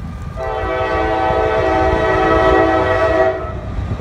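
Norfolk Southern diesel locomotive's air horn sounding one long, steady blast of about three seconds, several notes sounding together as a chord.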